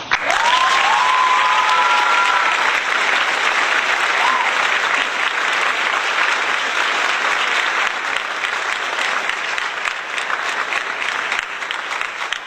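A large crowd applauding steadily, with a few cheers over it in the first few seconds; the clapping eases a little near the end.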